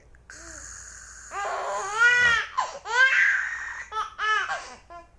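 Baby laughing from being tickled: a run of high, squealing laugh calls, loudest about two and three seconds in, with breathy rasping between them.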